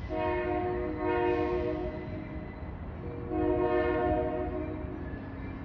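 Union Pacific locomotive air horn sounding two long blasts, each about two seconds, the second starting about three seconds in, over a steady low rumble.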